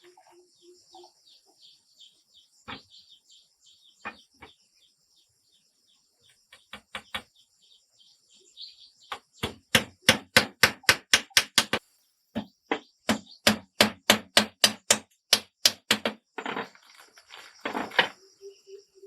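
Rapid blows of a tool on wood: a few scattered knocks, then fast runs of about five strikes a second through the second half, with a few heavier blows near the end.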